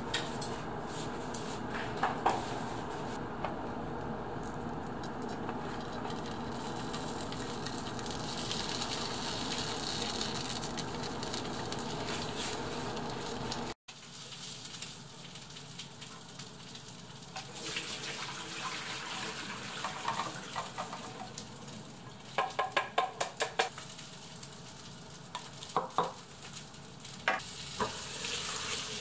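Oil heating in a cast iron skillet, a steady sizzle. After a sudden cut comes a quieter haze with bunches of short crisp rustles and clicks as shredded cabbage is handled and moved into a bowl.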